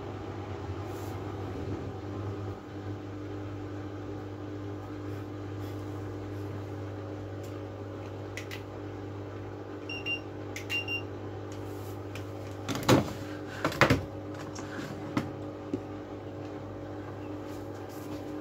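Miele W433S front-loading washing machine running with a steady motor hum. Two short electronic beeps come about ten seconds in, and a few seconds later two loud thuds.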